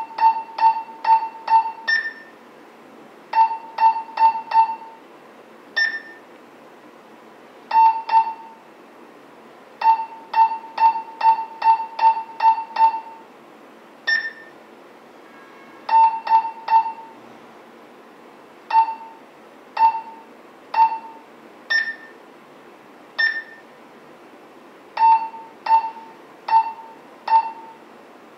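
Key beeps from a Retevis RT388 kids' walkie-talkie as its buttons are pressed to step through menu settings. Short electronic beeps come in runs of several, about two a second, with pauses between, and a single higher-pitched beep now and then.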